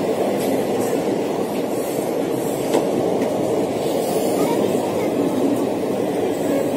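Passenger train of old ICF coaches rolling into the platform as it arrives: a steady rolling noise with a few faint clicks.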